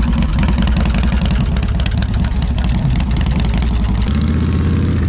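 A car engine running close and loud, a low, rapidly pulsing rumble. About four seconds in it gives way to a steadier, deeper hum.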